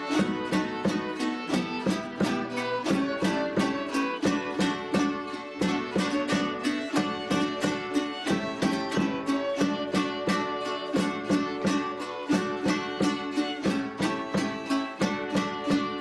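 Folk music on plucked strings, strummed in a quick, even rhythm.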